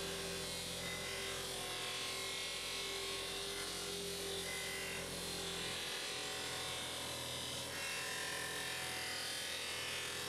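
Bench grinder running steadily with a buffing wheel fitted, a metal motorcycle bash plate being buffed against the spinning wheel.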